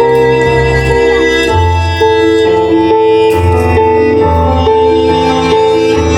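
Cello bowed in a slow melody of held notes, over an accompaniment with a low bass line.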